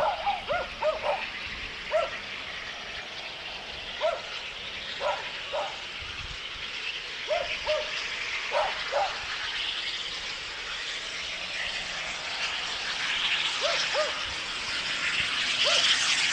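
A dog barking in short, sharp barks, scattered irregularly, some in quick pairs. Under them the noise of QR AC16 class steam locomotive 221A's approach grows steadily louder over the last few seconds.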